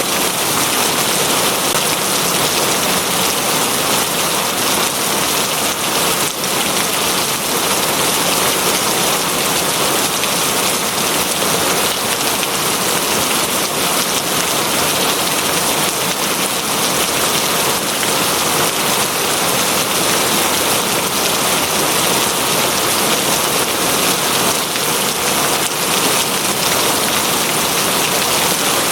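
Steady rain falling, an even, unbroken hiss of drops with no pauses.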